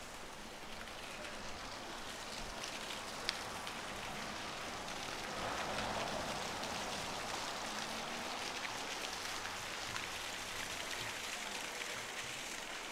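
Steady patter of falling water with many fine drip-like ticks, a little louder from about five seconds in.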